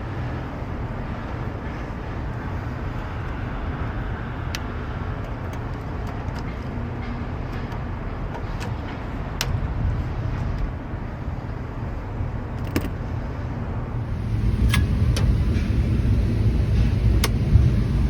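Actron air conditioner outdoor unit running after being switched on with a new contactor: a steady low hum with a few light ticks, getting louder about four seconds before the end.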